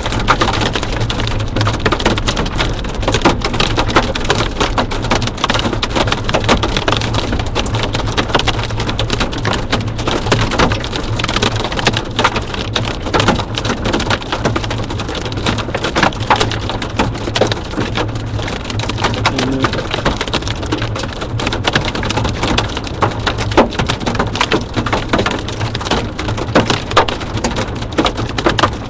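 Large hailstones, golf-ball to tennis-ball sized, pelting a moving vehicle's roof in a continuous, irregular clatter of hard hits mixed with heavy rain, over a steady low hum.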